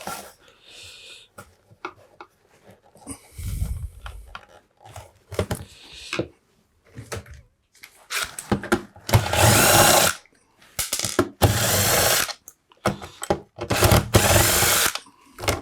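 Power drill-driver running in several short bursts, each a second or so long, backing screws out of a soldering station's power-supply base, with clicks and knocks of handling between.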